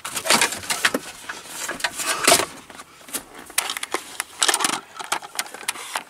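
Hard plastic dashboard trim being handled: irregular clicks, knocks and rattles as panels and parts are moved and pushed aside by hand.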